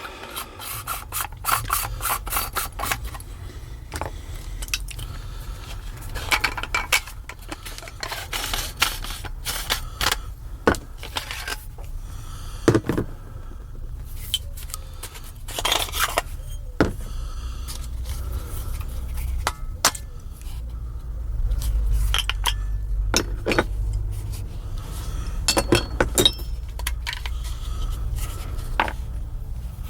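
Lightsaber hilt parts being unscrewed and handled: repeated clicks, clinks and scraping of metal parts against one another, over a low rumble.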